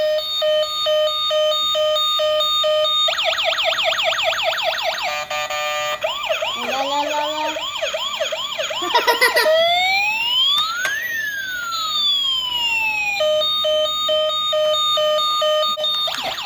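Battery-operated toy fire-rescue ambulance playing its electronic siren, cycling through patterns: a two-tone beeping hi-lo, then fast rising-and-falling wails with a brief rapid warble, then slow up-and-down sweeps, and back to the two-tone beeping about three seconds before the end.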